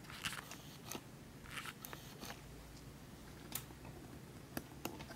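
Faint, irregular clicks and light handling noise, about eight small ticks spread over a few seconds, as camera and test equipment are adjusted.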